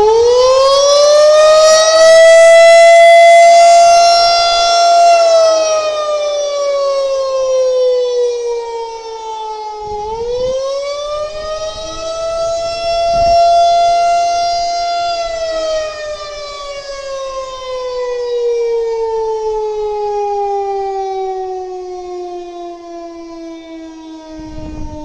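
Federal Signal 2001-130 rotating electromechanical outdoor warning siren sounding. Its pitch climbs and holds twice, then slides slowly down over the last ten seconds as it winds down. The loudness swells and fades as the horn turns.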